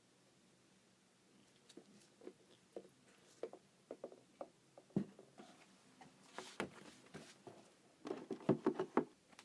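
Hands handling a sneaker box and its packaging. Scattered light taps and clicks start about a second and a half in, a rustle comes around the middle, and a quick run of taps and crinkles comes near the end.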